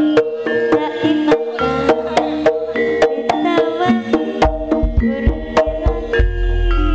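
Javanese jaranan gamelan music: struck metal keyed instruments play a quick run of ringing notes over sharp hand-drum strokes, and a deep low tone comes in about four and a half seconds in.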